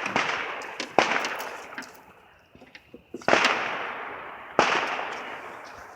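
Firework bangs: three loud reports, about a second in, just past three seconds and at about four and a half seconds, each echoing away over a second or more, with a few small pops in between.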